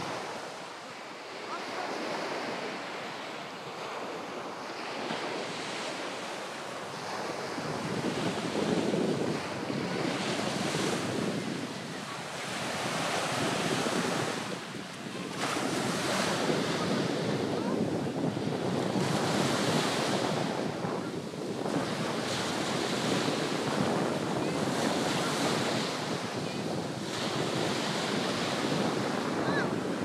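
Sea surf: small waves breaking and washing up a sandy beach in repeated swells, louder from about eight seconds in.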